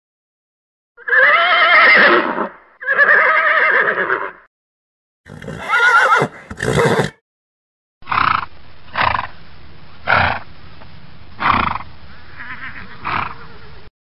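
Horses whinnying: two long whinnies, then another whinny with a short sound after it, then a run of five shorter sounds about a second apart over a steady hiss.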